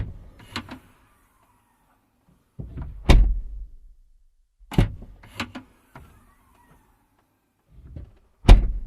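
Car doors being shut: about four solid door thunks, each with a sharp latch click close by, separated by moments of dead silence.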